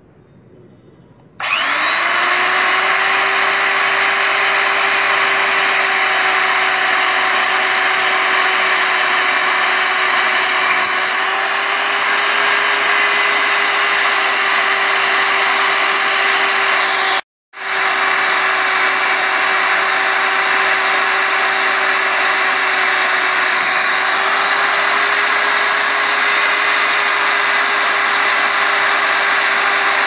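Electric drill spinning up about a second and a half in, then running steadily with a high motor whine while boring holes through plywood, its pitch shifting slightly now and then. It cuts out abruptly for a moment past the middle and runs on.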